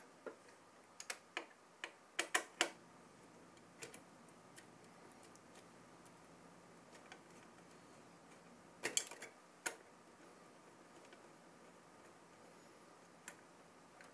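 Faint, irregular metallic clicks and ticks of a CPU cooler's mounting screws being turned into its nuts from behind the motherboard, with small clusters of clicks about two seconds in and about nine seconds in.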